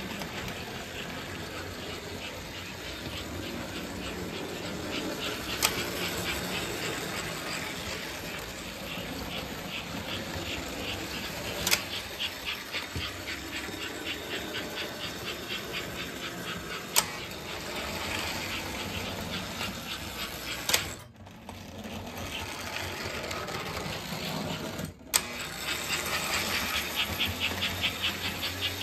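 Toy-train steam locomotives running on three-rail-free S-gauge track: a steady motor whir with a fast, even clatter of wheels and gearing. A few sharp clicks stand out, and the sound drops away briefly twice.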